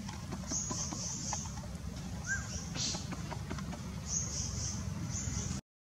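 Outdoor ambience: a steady low rumble under short, repeated bursts of high-pitched chirring, with one brief chirp about two seconds in and a few small clicks.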